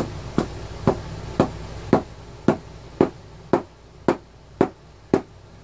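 Light knocks at a steady pace of about two a second as the plastic case of a Quantum Battery 1+ pack is tapped down, so that the new battery cell settles into the case under its own weight.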